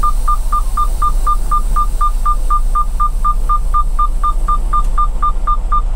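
Rapid electronic warning beeps in a truck cab, about four a second at one steady pitch, over the low rumble of the idling diesel tractor engine.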